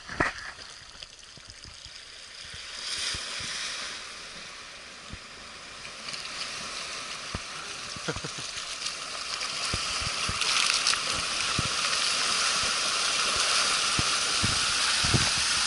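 Water splashing and rushing as a car fords a river, growing louder through the crossing and loudest in the second half, with scattered knocks.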